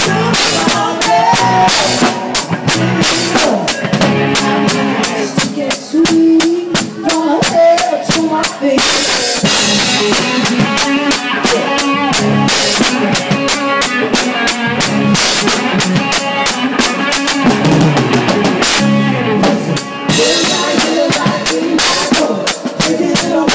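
Live band music with a drum kit heard close up: bass drum, snare and cymbals keep a steady beat over the band.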